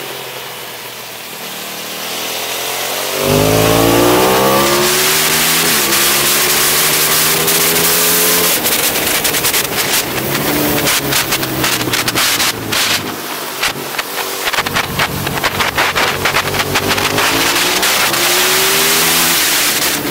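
Aprilia SXV 550 supermoto's V-twin engine with a full titanium Akrapovic exhaust, heard from on board the bike on track. It runs quietly off the throttle at first, then opens up hard about three seconds in, revs climbing steeply, and keeps pulling and easing with quick steps in pitch at the gear changes, over heavy wind noise.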